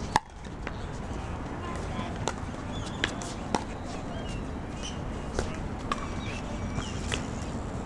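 Pickleball rally: sharp pops of paddles striking the plastic ball. The loudest comes right at the start, followed by about seven more at uneven gaps of half a second to two seconds.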